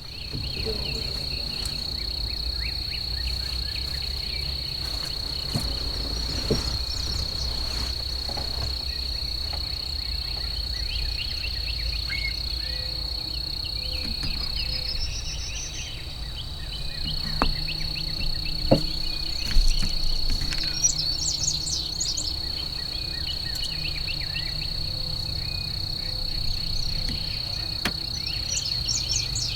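Insects trilling in one steady, unbroken high-pitched note, over a low rumble. Scattered short, high bird chirps come in about two-thirds of the way through and again near the end, and a couple of faint knocks sound just past the middle.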